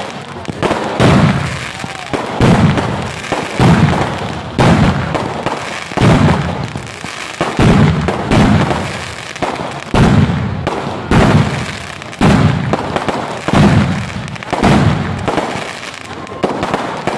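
Aerial firework shells bursting overhead in rapid succession, a loud bang about once a second, each trailing off before the next.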